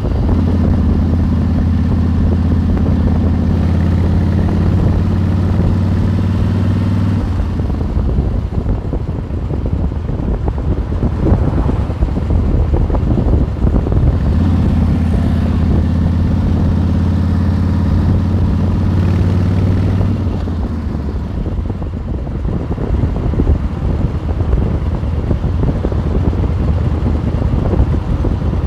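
Motorcycle engine running at a steady cruising speed under a rushing noise of wind and road. The steady engine drone drops back under the rushing noise about seven seconds in, comes back at about fourteen seconds, and drops back again at about twenty.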